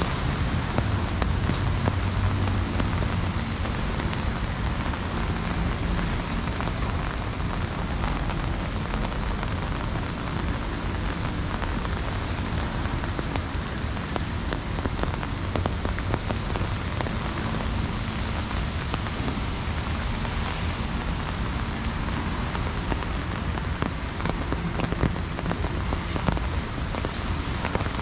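Heavy rain falling steadily, with a low steady rumble underneath.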